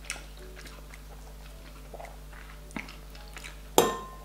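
Quiet eating sounds with soft chewing and a few small clicks, then near the end one sharp clink of a metal fork against a glass bowl of noodles, ringing briefly.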